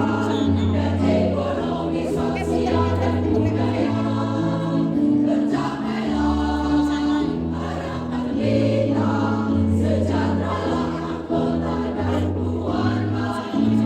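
A choir singing in parts with accompaniment, moving through held notes that change every second or so.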